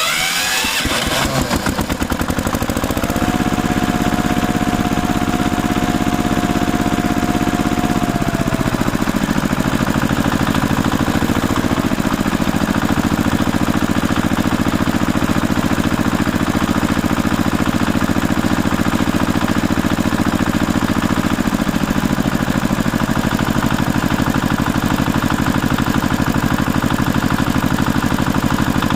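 Tractor engine starting up and then running steadily with an even firing beat. Its note shifts about eight seconds in and again about twenty-two seconds in.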